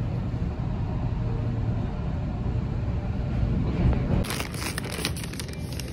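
Steady low rumble and hum of a moving vehicle heard from inside the cabin. About four seconds in it cuts off and gives way to a run of sharp clicks and rustling handling noise.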